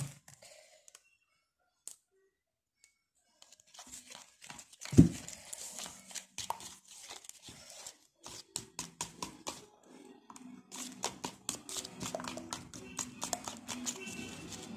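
Fingers stirring thick screen-printing binder paste in a plastic bowl, making quick wet clicks and squelches. The first few seconds are almost silent, and there is a single thump about five seconds in.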